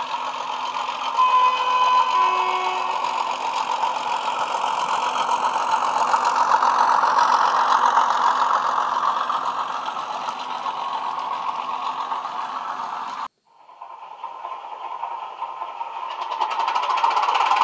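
Bachmann Class 31 model's factory DCC sound decoder playing diesel locomotive engine sound through upgraded speakers: a short two-note horn about a second in, then the engine builds up and runs under power. About thirteen seconds in the sound cuts off suddenly, then the engine sound rises again.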